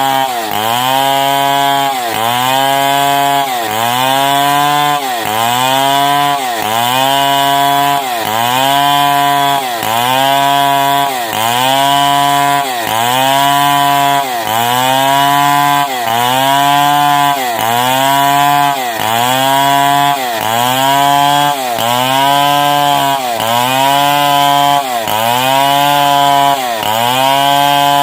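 Stihl 070 two-stroke chainsaw ripping a long timber lengthwise. Its engine note drops and recovers in a steady cycle, about once every second and a bit, as the bar is worked through the cut under load.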